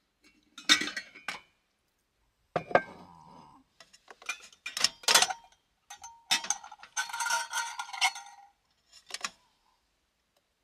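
Kitchenware being picked up and set down on a wooden counter: a run of separate clinks, knocks and clatters in about five bouts, one of which rings briefly.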